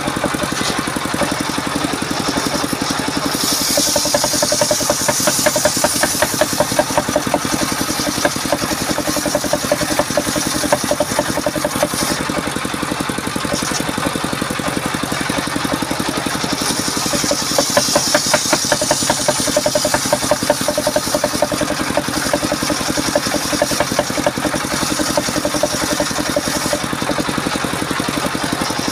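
Diesel engine driving a circular saw bench, running steadily with a fast, regular knocking beat, while the spinning blade rips through a length of waru wood. The cutting adds a higher rushing noise that swells a few seconds in and again a little past halfway.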